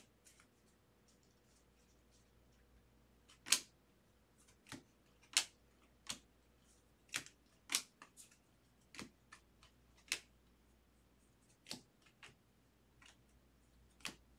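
Stack of 2023 Bowman baseball cards being flipped through by hand, one card at a time: faint sharp clicks and snaps of card edges, about one a second at uneven spacing, with a pause of about three seconds near the start.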